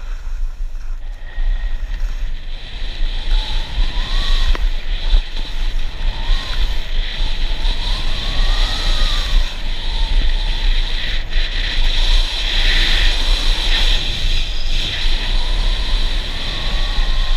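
Skis hissing and scraping over groomed snow through a run of turns, with wind buffeting an action camera's microphone as a steady low rumble.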